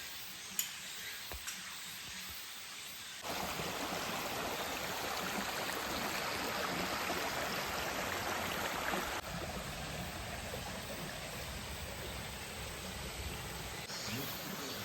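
Mountain stream water rushing steadily. It is softer at first, comes in much louder about three seconds in, and eases off a little after about nine seconds.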